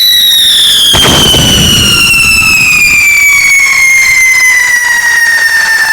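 Whistling firework: a loud, continuous whistle that slowly falls in pitch, with a bang about a second in.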